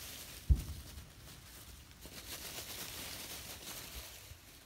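Dry fallen leaves rustling and crinkling as puppies scamper and tussle through them, with a brief low thump about half a second in.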